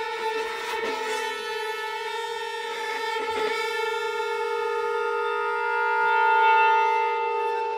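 Contemporary chamber ensemble of flute, clarinet, violins, viola, cello, electric guitar and piano playing long held notes, with a couple of short attacks early on and a swell louder about six seconds in.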